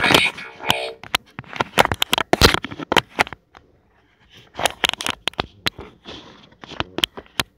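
Phone handling noise: irregular clicks, knocks and rubbing as the phone is moved about and a hand covers it.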